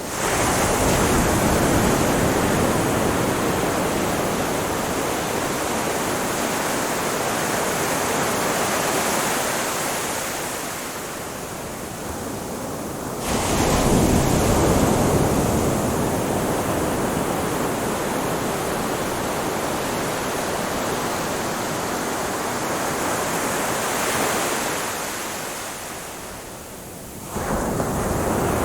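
Ocean waves breaking on a shore as a continuous wash of surf. Each wave comes in with a sudden rise, about 13 and 27 seconds in, then recedes slowly.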